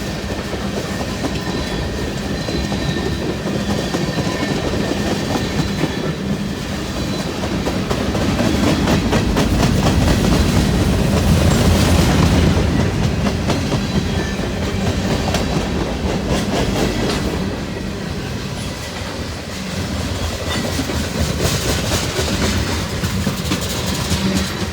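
Freight cars of a long CN train rolling past, wheels clattering steadily over the rail joints with a continuous rumble, getting louder about a third of the way in and easing off later.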